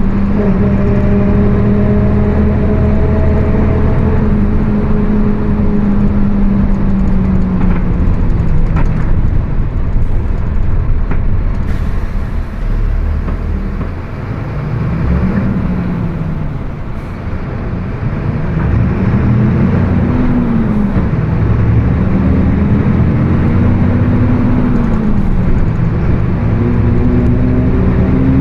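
Mercedes-Benz OF 1724 BlueTec 5 bus under way, its diesel engine running beneath a loud differential howl whose pitch follows road speed. The howl slides down over the first several seconds, then rises and falls in several swells through the second half before settling.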